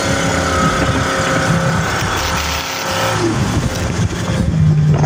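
A 1979 GMC Cobra Jet jet boat's inboard engine running under way, with its jet drive and wake water rushing. The steady engine note fades about three seconds in, and a lower tone comes up near the end.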